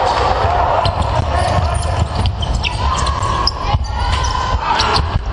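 Basketball in play on a hardwood sports-hall floor: the ball thudding as it bounces and sneakers squeaking in short high chirps, over a steady murmur of spectators' voices echoing in the hall.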